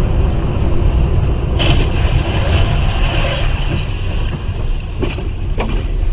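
Steady low rumble of a car's engine and tyres heard inside the cabin while driving, recorded by the windscreen dashcam, with a brief rise in hiss in the middle.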